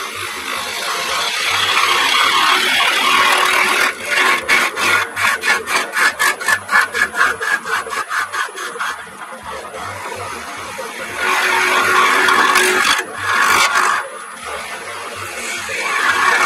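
Turning gouge cutting a spinning end-grain wood blank on a lathe, played back sped up threefold: a steady scraping hiss, with a run of rapid even pulses, about four a second, from about four to nine seconds in.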